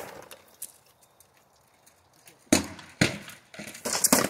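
Rattan weapons striking a shield and armour in armoured sparring: a sharp crack about two and a half seconds in, another half a second later, then a quick flurry of blows near the end.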